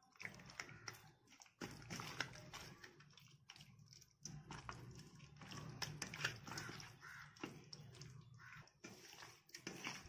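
Faint wet squelching and clicking of a hand working masala-paste-coated fish pieces in a steel bowl, with irregular small smacks as the pieces are turned.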